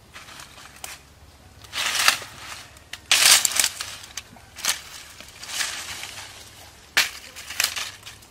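Bare feet crunching through dry leaves and twigs, about half a dozen uneven steps, with a sharp crack about seven seconds in.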